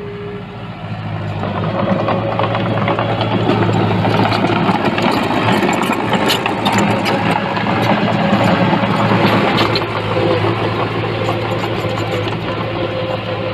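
Diesel engine of earthmoving machinery running steadily, getting louder about a second or two in, with a few sharp knocks in the middle.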